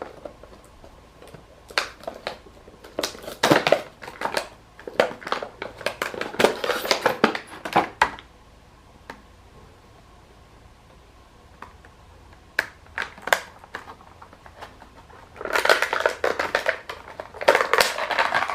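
A figure's packaging and its backing being pulled apart and crinkled by hand, in two bouts of crackling rustle with a quieter lull in between.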